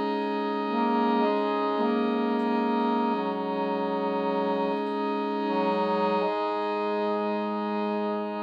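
Piano accordion playing slow, sustained chords, changing every second or so, then holding one long chord from about six seconds in.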